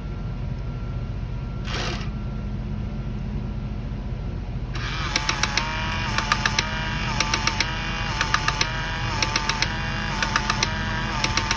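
The small electric motor and plastic gearbox of a Radio Shack radio-controlled Sherman tank running under test. The motor starts about five seconds in, giving a steady whine with clusters of three or four sharp clicks about once a second.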